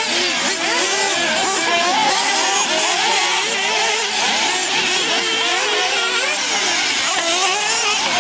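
A pack of nitro RC buggies' small two-stroke glow engines racing together, each revving up and falling back as the cars accelerate and slow for the corners, so many overlapping pitches rise and fall continuously.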